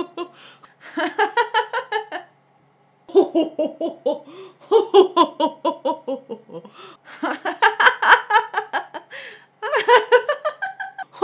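A woman laughing hard, in several long fits of quick pulsed laughs separated by short breaths.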